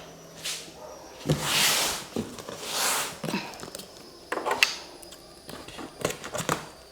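Cardboard shipping box being opened by hand: three long scraping, rasping sounds of cardboard flaps and packing tape, then a few sharp clicks and knocks as the box is handled.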